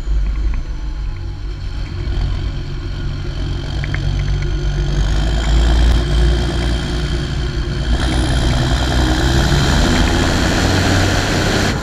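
John Deere 7530 tractor's six-cylinder diesel engine, with an open-pipe exhaust, running steadily as the tractor drives along. It grows louder a few seconds in and again past the middle.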